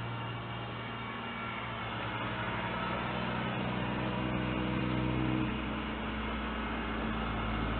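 Diesel engine of a wheeled front-end loader running as the machine drives off, a steady low drone that shifts pitch slightly about five seconds in, heard thinly through a security camera's microphone.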